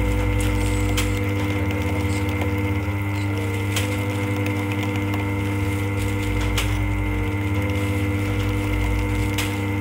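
Continuous band sealer running steadily as bags of tempe soybeans pass through, a motor hum with several fixed tones. Three sharp clicks come about three seconds apart, and a low rumble comes and goes.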